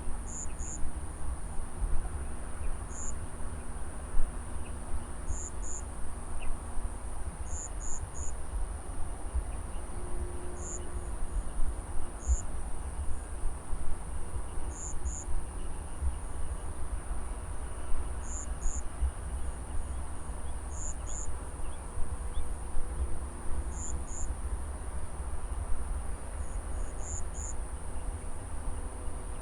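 Insects calling: one steady, high continuous trill, and over it short paired chirps that repeat every second or two. Underneath runs a low, uneven rumble with frequent sharp peaks.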